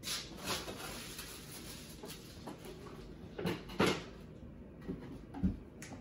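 Cardboard box and packaging being handled: scattered knocks and rustles, the loudest a pair of knocks near the middle and a dull thump near the end.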